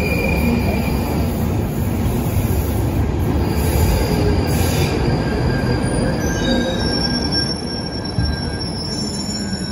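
London Underground train running into the platform with a heavy rumble, its wheels and brakes squealing in high thin tones. The squeals multiply over the last few seconds as it slows.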